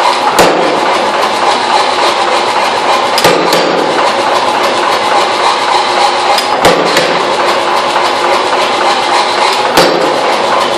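Blacksmith's power hammer running, its dies striking a red-hot steel bar in a rapid, steady stream of blows to forge a texture into the surface, with a few louder clanks scattered through.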